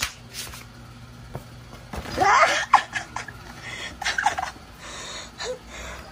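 Cat meowing from inside a reusable shopping bag: short bending calls about two seconds in, again around four seconds and once more briefly, with crackling rustles of the bag's fabric.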